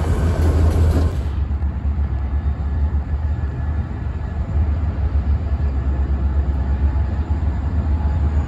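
EMD SD40 diesel locomotive passing close by with a loud rumble of engine and wheels, cut off about a second in; then a steadier, quieter low rumble of diesel locomotives approaching slowly.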